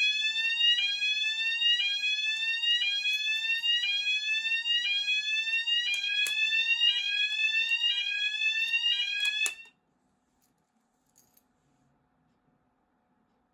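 Fire alarm sounder on test, sounding a repeating rising sweep tone of about one sweep a second. It cuts off suddenly about ten seconds in.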